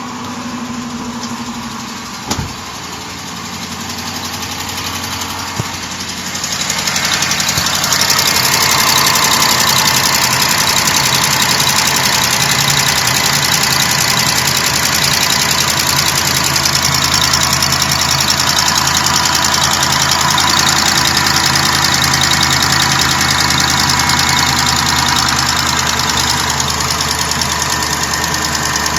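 Jeep Grand Cherokee 5.7 Hemi V8 idling just after a cold start, with a rapid ticking over the running engine; the sound grows louder about six seconds in. The owner is unsure whether the tick is a lifter, an exhaust leak or a noisy injector.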